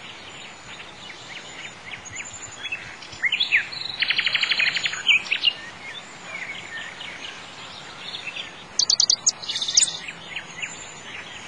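Several birds singing and chirping over a faint steady hiss, with a fast trill lasting about a second about four seconds in and a higher, rapid run of notes near the end.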